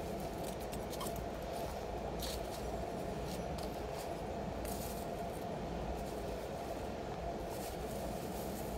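Shredded-paper bedding in a worm compost bin rustling softly a few times as a gloved hand stirs it, over a steady low hum of city background noise.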